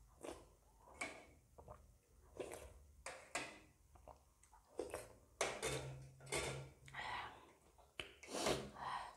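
Close-up eating sounds: a spoonful of soup sipped, then noodles being chewed, with a run of short wet mouth clicks and smacks, busier in the second half.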